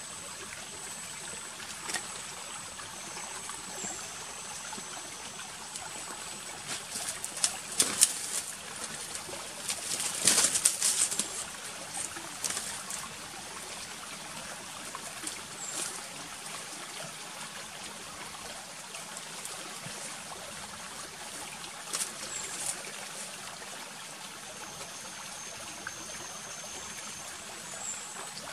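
Small forest creek trickling steadily under a thin, steady high-pitched tone, with a few sharp crackling rustles twice, around a quarter and a third of the way in, as twigs and brush at the water's edge are handled.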